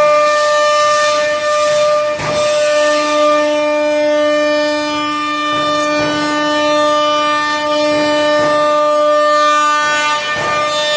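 ATC spindle of a 1325 CNC router running with a steady high whine, with brief noisy rushes about two seconds in and again near the end.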